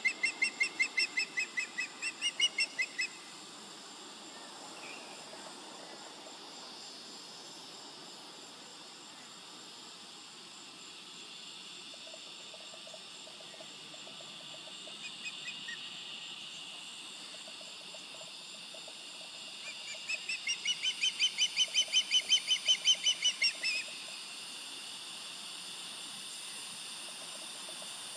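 Juvenile osprey calling: a rapid series of short, high whistled notes, about four a second, in two bouts, one at the start lasting about three seconds and another about twenty seconds in lasting about four seconds.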